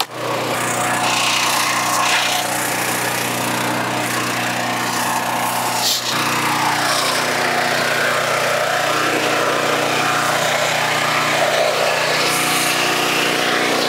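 Eastonmade commercial log splitter running steadily while it splits wood, its small engine droning under the noise of the work.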